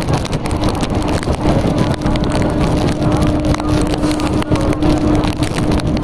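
Electric multiple unit (EMU) local train running at speed, heard from its open doorway: a loud, steady rush of wind and track noise with a steady hum running through it and many short clicks.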